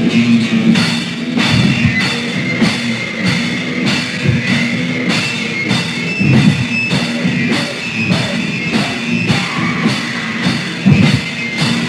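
Raw, rough hardcore punk band recording from a demo tape: a drum kit keeps a fast, even beat of about two hits a second under bass and electric guitar.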